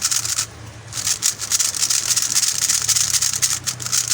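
MoYu Huameng YS3M MagLev 3x3 speedcube being turned very fast by hand, its plastic layers making a dense clicking rattle as they slide; the cube is unlubricated. The turning stops briefly about half a second in, then runs on without a break.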